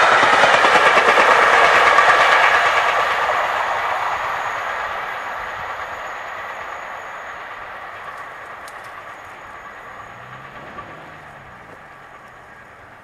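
A 13-coach passenger train rolling past at speed, its wheels running over the rails. The sound is loud for the first couple of seconds, then fades steadily as the train draws away.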